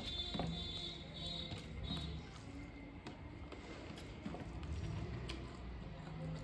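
A person chewing a mouthful of food, with small wet clicks and soft thumps.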